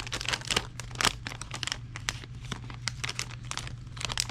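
Hands handling small airsoft Hi-Capa pistol parts: a dense run of small clicks, taps and rustles, over a steady low hum.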